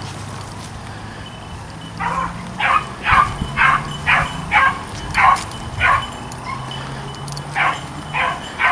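Beagles baying while running a scent trail. After a quieter first two seconds comes a string of short bays about two a second, then a pause of about a second and a few more near the end.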